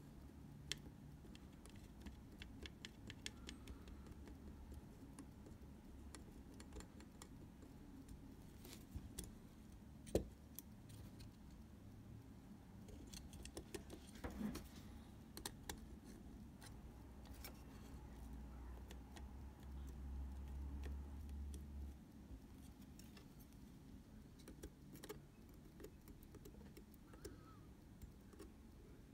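Faint small clicks and ticks from hands handling a camera and small tools at a repair bench, with one sharper click about ten seconds in, over a low steady hum.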